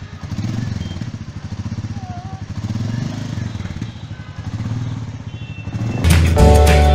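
Royal Enfield Meteor 350's single-cylinder engine running with an even, rapid thump, revved gently three times and settling back between blips. Background music with a flute-like melody comes in about a second before the end.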